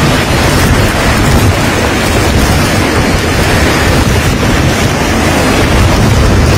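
Strong storm wind buffeting the microphone: a loud, steady rush of noise with a heavy low rumble and no let-up.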